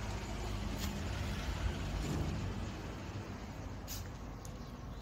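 Steady low engine rumble of a motor vehicle, swelling briefly about two seconds in.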